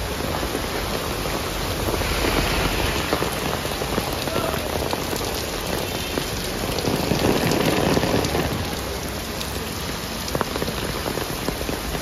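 Heavy rain pouring onto a street, splashing on wet pavement and running off roof edges. It grows louder for a while about two seconds in and again about seven seconds in.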